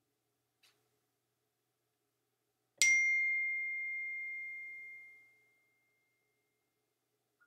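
A single bell-like ding about three seconds in, one clear ringing tone that fades away over about three seconds; otherwise near silence.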